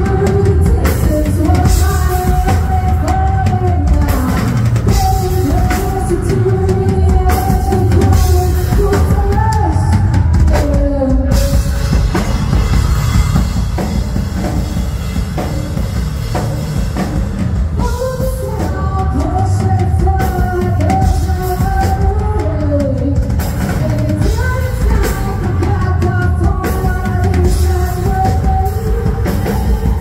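Live rock band playing over a PA: lead vocals over electric guitars, bass guitar and a drum kit. The singing drops out for a few seconds of instrumental playing in the middle, then comes back.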